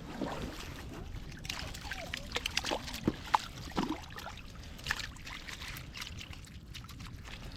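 Creek water trickling and sloshing, with a flurry of small clicks and light taps in the middle stretch.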